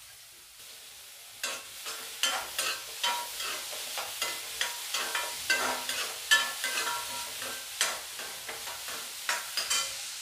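A steel spoon stirs grated carrot, cabbage and cauliflower frying in oil in a kadai, over a faint sizzle. The stirring starts about a second and a half in: irregular scrapes and clinks of metal on the pan, some of them ringing briefly.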